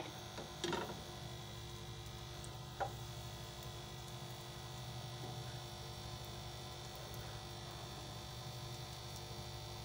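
Steady low electrical hum, with one faint click about three seconds in.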